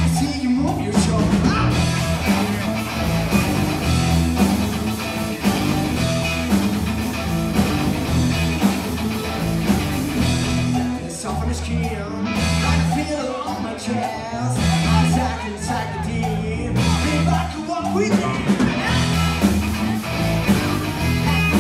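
Live blues-rock band playing: electric guitar, electric bass and drum kit together.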